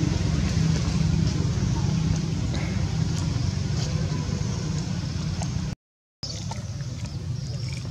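Steady low rumble of a vehicle engine running, with a few faint clicks over it; the sound cuts out completely for about half a second near the end.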